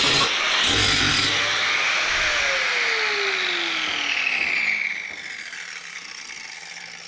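Handheld power tool working the truck bed's sheet metal, then released: its motor spins down with a falling whine over about three seconds, fading out about five seconds in.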